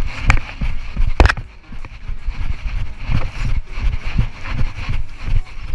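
Footsteps of a person walking briskly on a paved road, picked up by a body-worn action camera as regular low thuds about twice a second, with clothing rustle. A steady high hiss sits behind them.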